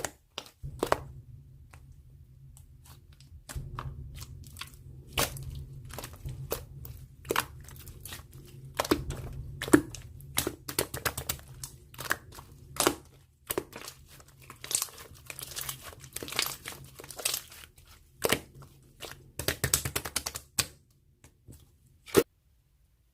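Crinkling and tearing of a thin material, with many sharp clicks and handling noises, over a steady low hum.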